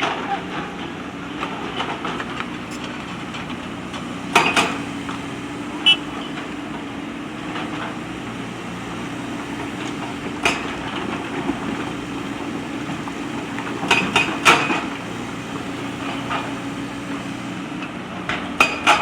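JCB backhoe loader's diesel engine running steadily, with several sharp knocks scattered through it as the machine works stones.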